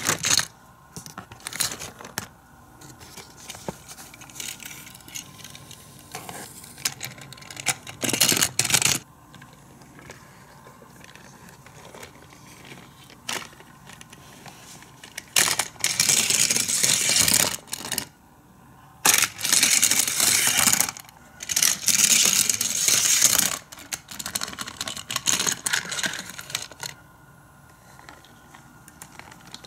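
Hard plastic toy playset being handled: scattered clicks and clatter as a die-cast toy fire truck is set on the plastic track. About halfway through, two long stretches of dense plastic rattling as the hand crank of the playset's elevator winch is turned.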